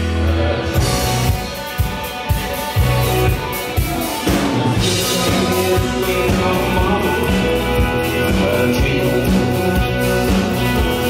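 Live rock band playing electric guitars, bass and drum kit. Separate drum hits stand out over the guitar in the first few seconds, then the full band settles into a steady groove from about four seconds in.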